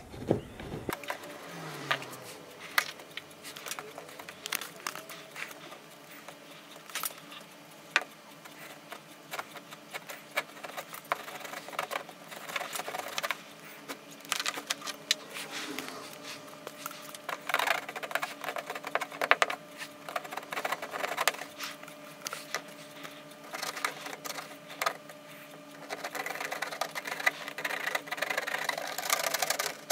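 The hot tip of a handheld plastic welder scraping and tapping against wire mesh as it is pressed into a polyethylene tank wall: irregular small clicks and rubbing, with stretches of scraping that grow busier near the end, over a faint steady hum.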